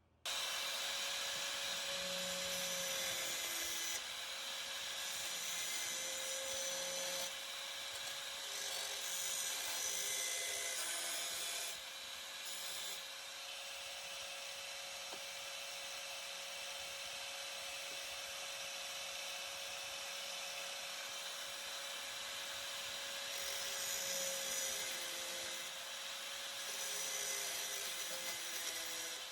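Electric grinder running continuously against the sheet-metal patch panel: a steady motor whine under a gritty hiss, dipping slightly in pitch at moments as it bites into the metal.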